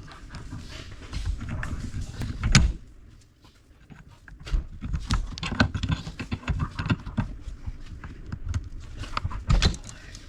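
Hand tools scraping and knocking against a cast water pump housing while working a stuck bolt and rubber stopper out of its coolant passage: irregular clicks, scrapes and knocks, with one sharp loud knock a few seconds in, a short lull, then more scraping and clicking.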